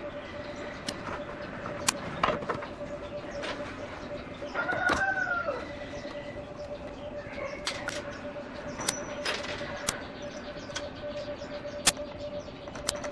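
A chicken calls once about five seconds in, a short cry that rises then falls. Scattered sharp clicks and taps and a faint steady hum run underneath.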